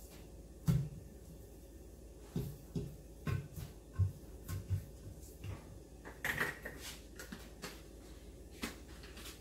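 Light knocks and taps of spice shaker bottles being shaken over a glass baking dish and set down on a stone kitchen counter, a string of short low thuds about every half second, then a brief louder clatter a little past the middle.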